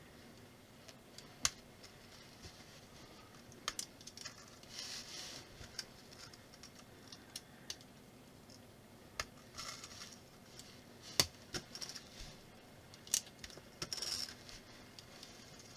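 Plastic clip bricks being pressed together and handled during assembly: scattered sharp clicks as small parts snap into place, with a few short soft rustles of fingers working the pieces.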